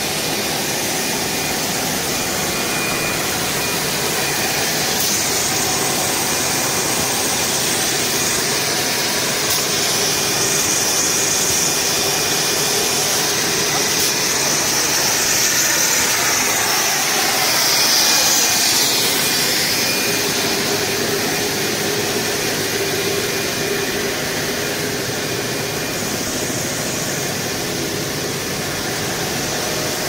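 Steady machinery noise of a running plastic hose extrusion line: a continuous hiss and hum with a faint steady whine, the hiss growing a little louder and brighter midway.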